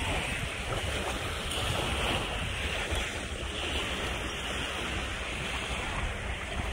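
Surf washing onto a sandy beach, with wind rumbling on the microphone; the wash swells and eases a couple of times.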